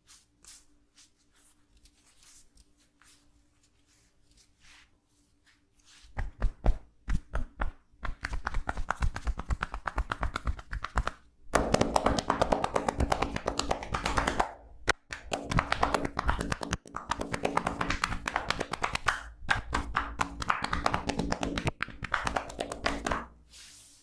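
Hands rapidly tapping on a clothed back in percussive massage strokes. After a few seconds of faint light touches, it starts about six seconds in as a few separate slaps. It then becomes a dense, fast patter with brief breaks and stops near the end.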